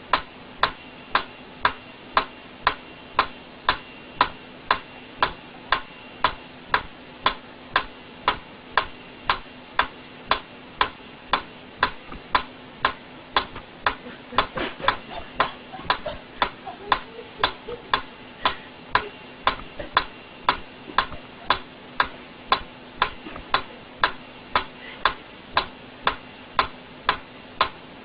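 Mechanical metronome ticking steadily at about two beats a second. Some softer, irregular sound joins it for a few seconds around the middle.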